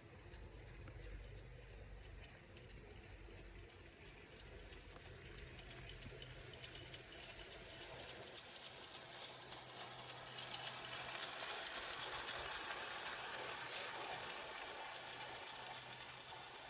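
Gauge 0 model locomotive's electric motor and gearbox whirring while its wheels rattle and click along the track. It grows louder as the train draws near, is loudest a little past the middle, then eases off as it moves away.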